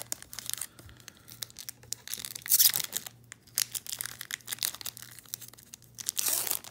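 Wrapper of a 2019 Topps Series 2 hobby pack being torn open and crinkled by hand, with a loud rip about two and a half seconds in and another near the end.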